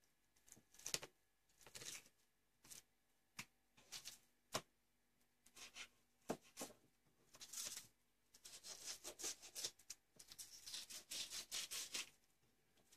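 Knife blade cutting along a fish fillet on a plastic cutting board: scattered light clicks and taps, then several seconds of dense scraping near the end as the blade works between flesh and skin.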